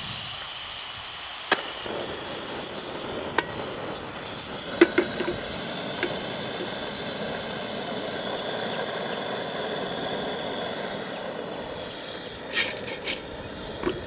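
Portable LPG gas stove burner hissing steadily once lit, with a few sharp clicks and metal knocks as an aluminium pressure cooker is set on it and handled, the loudest cluster near the end.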